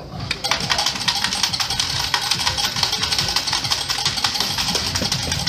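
Poker machine running its free games: a fast run of ticks over a bright hiss as the reels spin, with the machine's game music.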